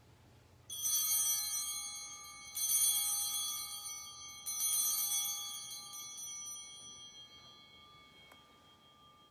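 Altar bells (Sanctus bells) rung three times, about two seconds apart, each ring fading away slowly over several seconds. They mark the elevation of the host just after the consecration.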